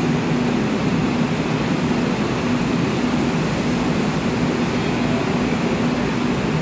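Seoul Subway Line 3 GEC chopper train standing at the platform, with a steady machinery hum from the train. A low tone in it pulses on and off in a steady rhythm, about twice a second.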